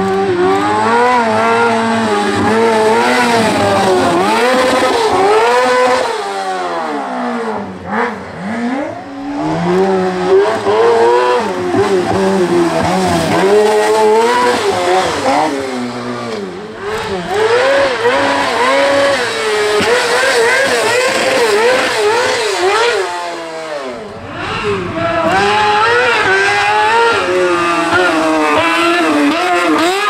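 Single-seat buggy race cars driven hard through a bend one after another, their engines revving high and rising and falling quickly as they accelerate and lift. The sound dips briefly twice, between cars.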